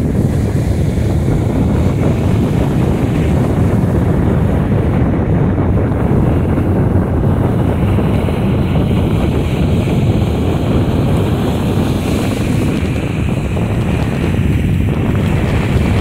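Wind buffeting the microphone in a steady low rumble, over the rush of rough sea surf breaking on the shore.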